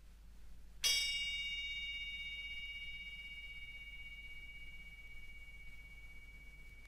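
A single bell-like metal percussion note is struck about a second in. It rings on with several high overtones and fades slowly, with one high tone still sounding at the end.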